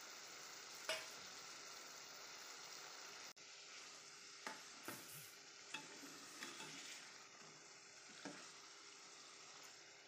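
Faint, steady sizzle of chicken cooking in a metal pot, with a metal spoon stirring it and clinking against the pot several times.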